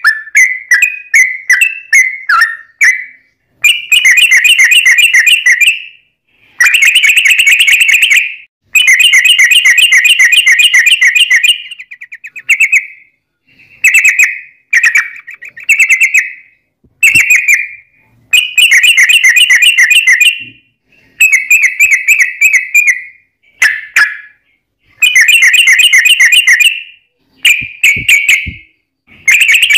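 Yellow-vented bulbul (trucuk) song: loud, rapid chattering trills in a string of phrases about one to three seconds long, separated by brief pauses.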